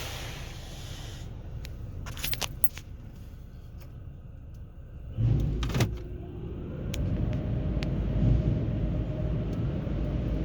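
In a touchless automatic car wash, the spray hiss dies away in the first second, a few light clicks follow, then a loud low rumble starts suddenly about five seconds in and runs on steadily.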